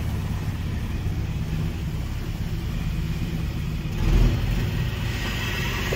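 Steady low engine rumble from running work equipment, with a brief low thump about four seconds in.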